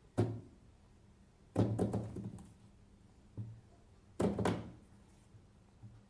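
Marbles knocking inside a wooden fidget stick as it is rolled and flipped by hand: a single knock, then two rattling bursts of several quick clacks a couple of seconds apart, with softer single knocks between.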